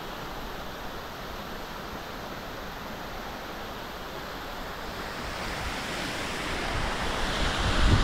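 Waterfall and stream water rushing steadily, growing louder toward the end, with wind rumbling on the microphone near the end.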